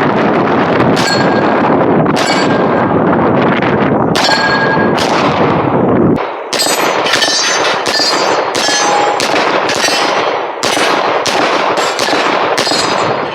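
Rapid gunfire with steel targets ringing out as they are hit, shot after shot. Dense and rumbling for the first half, then separate shots with a clang after each, about two a second.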